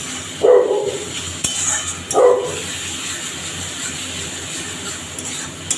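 A dog barking twice, short pitched barks about half a second and two seconds in, with a metal spatula stirring and scraping in a metal wok underneath.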